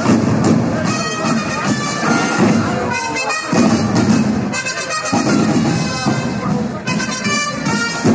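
A band of side drums playing with a held wind-instrument melody above the drumming.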